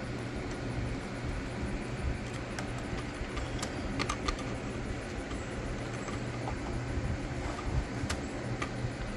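Scattered light clicks and taps of a screwdriver, screws and the plastic engine cover being handled on a string-trimmer powerhead, over a steady low background rumble.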